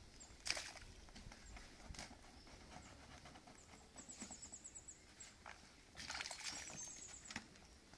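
Faint scooping and splashing as a manure-and-soil mix is tipped by hand from a container into a shallow plastic-lined pond of water, with a few soft knocks and splashes. A rapid high trill sounds twice, about halfway through and near the end.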